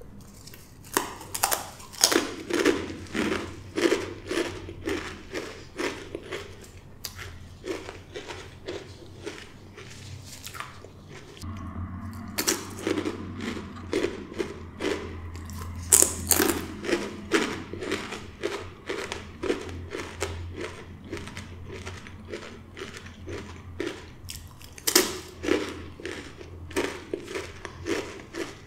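Crunching and chewing of blue Takis rolled corn tortilla chips, bitten off and chewed in three spells of rapid, sharp crunches.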